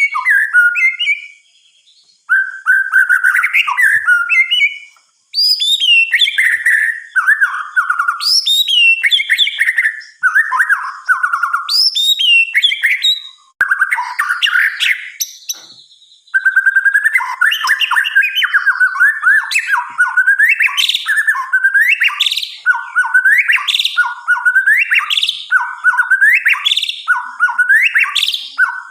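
White-rumped shama (murai batu) singing loud, varied whistled phrases with short pauses between them. About halfway through it settles into a run of repeated upward-sweeping notes, roughly one a second.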